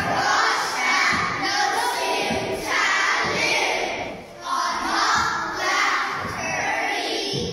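A large group of young children chanting a song together in unison, loud and shouty, with a brief pause between phrases about four seconds in.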